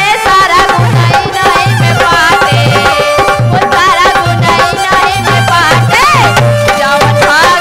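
Woman singing a Bhojpuri devotional bhajan with gliding, ornamented notes, over a steady hand-drum beat and sustained accompanying tones.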